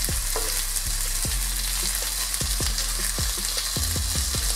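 Marinated fish fillets sizzling in a little oil on a flat tawa griddle over a high flame, a steady hiss with scattered short clicks, as the water in the fish cooks off.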